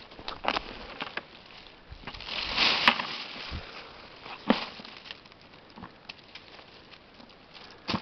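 Footsteps and rustling in dry leaf litter and pine needles, with scattered sharp cracks of twigs. A longer, louder rustle comes about two to three seconds in.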